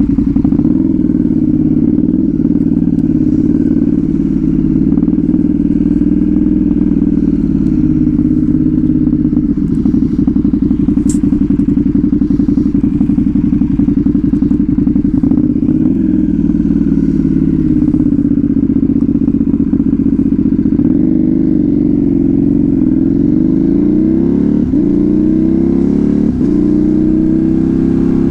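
Motorcycle with a loud aftermarket exhaust riding in traffic, its engine note holding steady, then dropping and climbing again several times through gear changes in the last third. A single sharp click about eleven seconds in.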